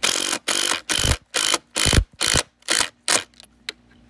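Cordless impact driver driving a screw into wood in about eight short bursts on the trigger, followed by a couple of faint clicks.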